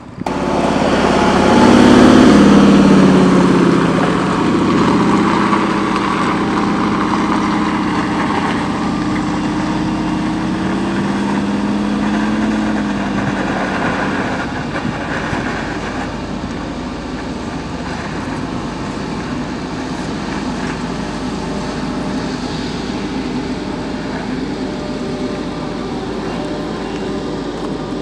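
Engine of a boxy off-road SUV pulling up a steep gravel hill climb. It starts suddenly and is loudest and changing in pitch in the first few seconds, then settles to a steadier, quieter drone as the climb goes on.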